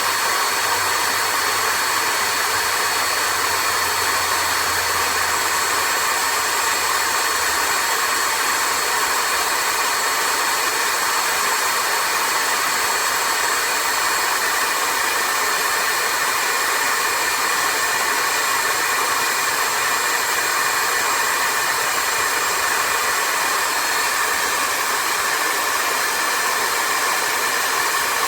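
Cordless stick vacuum cleaner running steadily, a constant rush of air with a high motor whine.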